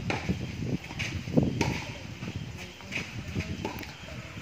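Tennis ball struck by a racket during a rally: sharp pops, one right at the start and another about a second and a half later, with fainter ones after.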